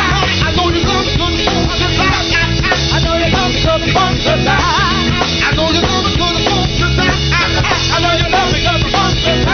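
Live funk band playing a steady groove on drum kit and bass, with wavering pitched lines over it.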